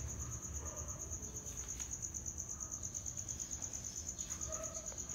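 An insect trilling steadily in the background: one high, rapidly pulsing tone that does not let up.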